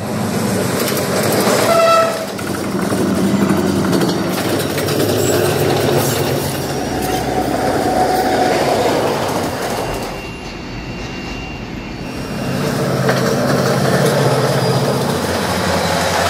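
Bangladesh Railway diesel locomotives and coaches passing: steady engine rumble and wheels clattering over the rails, with a short horn blast about two seconds in. The sound dips for a couple of seconds near the middle, then the rumble of another passing train comes back up.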